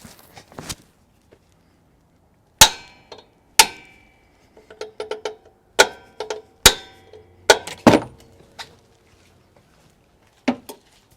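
Sharp metal-on-metal clangs with a short metallic ring as a replacement alternator is knocked into its mounting bracket: about seven hard strikes at irregular intervals, with lighter taps between them, to drive the tight mounting sleeves in line with the bosses.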